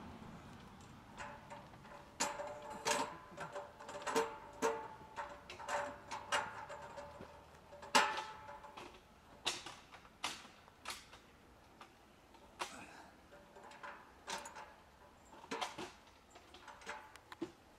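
Steel parts of an Egojin 3022 smith machine clinking and knocking as a bracket is fitted onto a steel guide rod. Irregular sharp metal taps, some ringing briefly, the loudest about eight seconds in.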